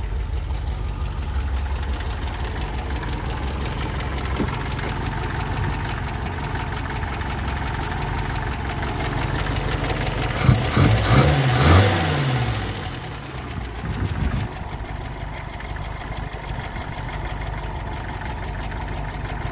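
1972 MGB's 1.8-litre B-series four-cylinder engine idling steadily. About halfway through, the revs are blipped up and back down a few times at the carburettor linkage.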